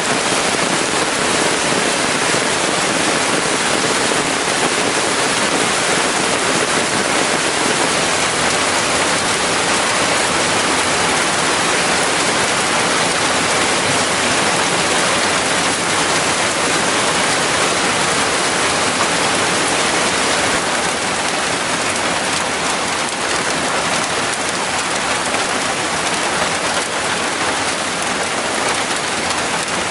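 Heavy rain falling steadily, a dense even hiss, easing slightly about two-thirds of the way through.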